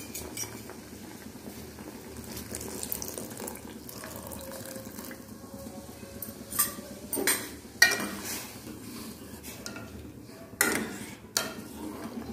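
Steel spoon and ladle stirring and clinking against a steel bowl and an aluminium pot of boiling soup as corn flour slurry is stirred in to thicken it, over a steady bubbling. Several sharp metal knocks in the second half.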